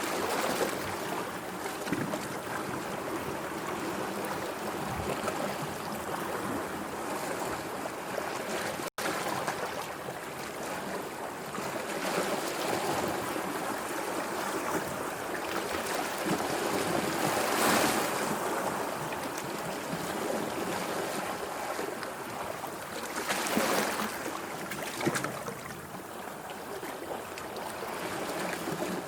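Sea waves washing and breaking in a steady wash of surf, swelling louder in surges around two-thirds of the way through and again a little later. A split-second dropout about a third of the way in.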